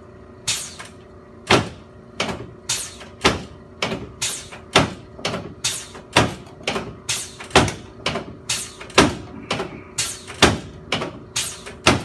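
A rapid series of sharp slaps or knocks during chiropractic treatment, about two a second and slightly uneven, over twenty in all, some coming as quick double hits.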